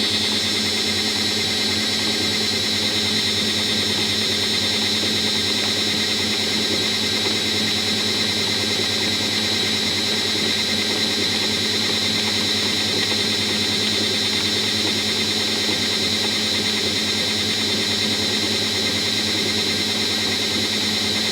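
Washing machine running with its drum spinning at a steady speed: a steady high-pitched whine over a low motor hum.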